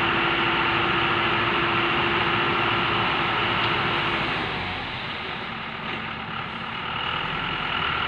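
Diesel engine of a crawler tractor running steadily close up. A steady tone in the engine sound cuts out a little past halfway and the sound eases off, then picks up again near the end.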